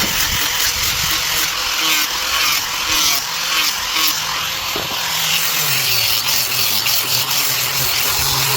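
A power tool working wood, running with a steady harsh noise.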